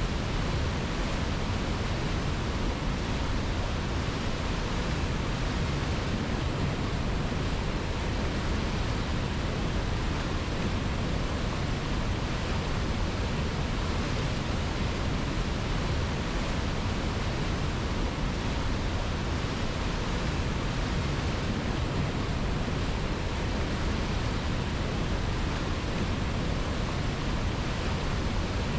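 River water rushing in a steady, unbroken wash with no changes.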